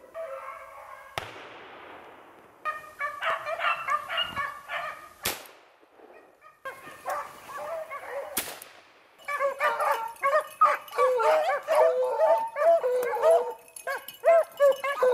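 A pack of beagles baying on a rabbit's track. The voices come in short stretches broken by sharp clicks, then from about nine seconds in many dogs bay together, louder and busier.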